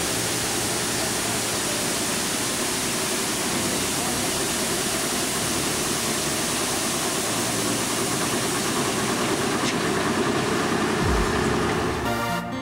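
High-pressure water jets of a drive-through vehicle wash rack spraying against a tracked armoured vehicle: a steady rushing hiss, with the vehicle's engine running underneath. Music cuts in near the end.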